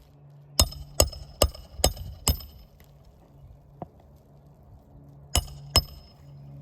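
Hammer striking metal with a ringing clink: five quick blows about two a second, then two more near the end.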